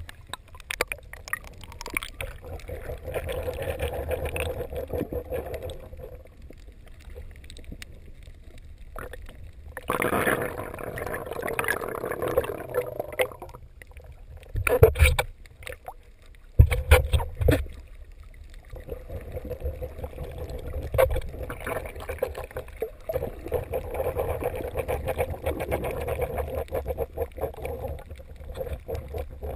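Muffled water sloshing and bubbling around a GoPro's waterproof housing as it is swum underwater, with louder swells and two sharp knocks about halfway through.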